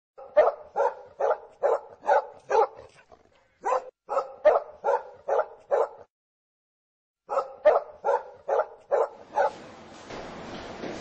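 A dog barking in three runs of quick, evenly spaced barks, about two and a half a second, with short silent gaps between the runs. A steady hiss comes in near the end.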